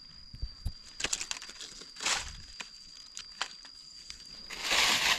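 Dry fallen leaves crackling and rustling as gloved hands pick through leaf litter and pull up a mushroom, with sharp crackles scattered through and a louder stretch of leaf rustling near the end.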